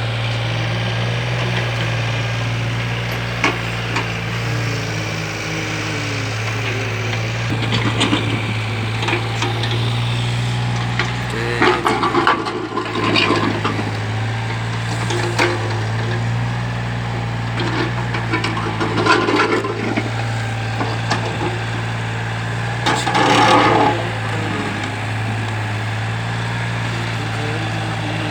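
Kobelco SK013 mini excavator's diesel engine running steadily, with repeated bursts of scraping and grinding as the bucket works through the material being mixed. The loudest scrape comes near the end.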